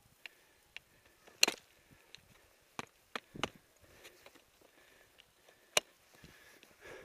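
Skis and ski poles clicking and knocking on hard snow in an irregular series of sharp clicks, the loudest about one and a half seconds in and another strong one near six seconds.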